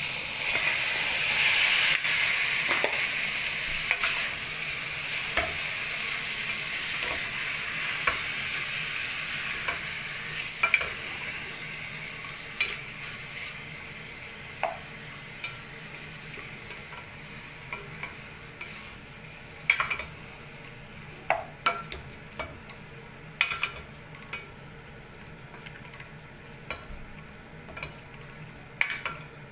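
Cubed pork belly hitting hot oil and onions in a stainless steel pot and sizzling, loudest just after it goes in and slowly dying down. A spatula stirs the meat, knocking and scraping against the pot in scattered clicks that stand out more in the second half.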